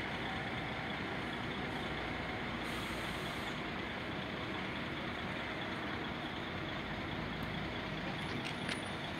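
Steady rumble of road traffic and idling buses, with a short hiss about three seconds in.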